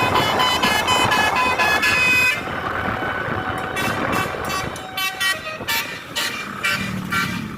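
Indonesian 'telolet' musical bus horn of the Basuri type, tootling a quick tune of several tones in short repeated blasts over steady traffic noise. The toots are dense for the first two seconds, then come as shorter, sparser bursts.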